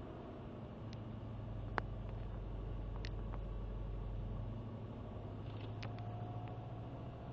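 Subaru Impreza WRX's turbocharged flat-four idling from a cold start, the idle hunting up and down between roughly 1,500 and 2,000 rpm, the weird cold-start fault the owner is recording. The engine note drops a little past halfway, and there is one sharp click about two seconds in with a few fainter ticks.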